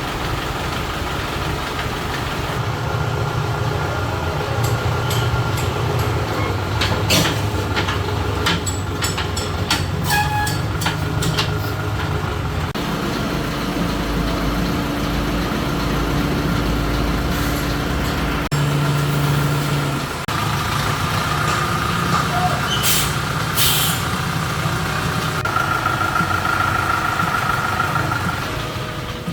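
A motor vehicle engine running steadily, with scattered sharp clicks and taps from around seven to twelve seconds in and again near twenty-three seconds; the tone shifts abruptly a few times.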